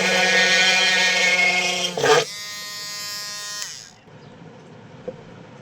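Small electric motor running with a steady buzz. About two seconds in there is a brief louder rattle, after which it runs more quietly, then winds down with falling pitch and stops at under four seconds.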